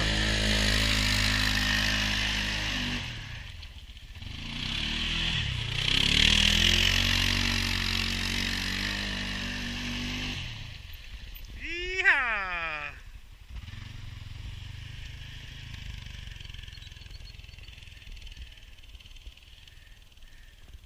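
Arctic Cat Prowler HDX 700 side-by-side's single-cylinder engine revving hard as it spins its tyres in mud, easing off around four seconds in and revving again. About twelve seconds in it goes close past with a quick drop in pitch, then runs on fainter in the distance.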